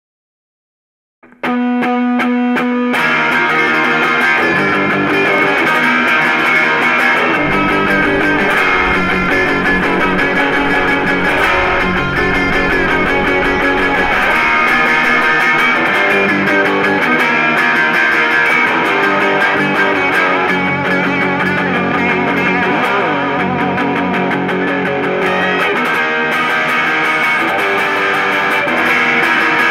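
Punk rock music led by distorted electric guitar. It opens after about a second of silence with a short held chord, and the full song comes in about three seconds in and plays on steadily.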